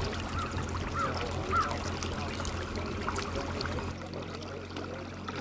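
River water trickling, with a low steady hum and a few short chirps in the first two seconds. About four seconds in the sound changes and grows quieter.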